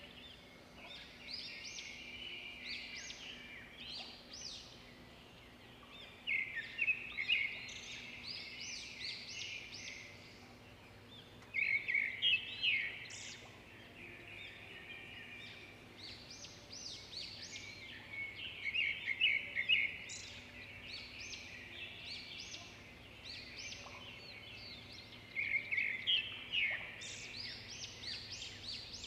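Birds chirping and twittering in clusters of quick high chirps that come every few seconds, over a faint steady hum.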